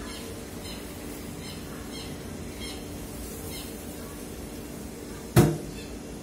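Kitchen knife cutting raw chicken breast on a plastic cutting board, with one sharp knock about five seconds in. Faint, short high chirps recur throughout.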